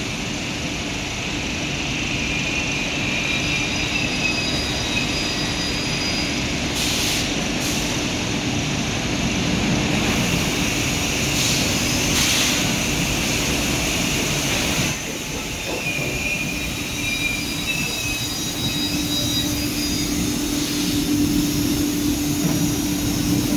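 Multi-spindle CNC router machining a wooden door panel: a steady loud machine noise of spinning router spindles cutting wood together with the dust extraction, with a faint high whine over it. The noise dips briefly about two-thirds of the way through, then carries on.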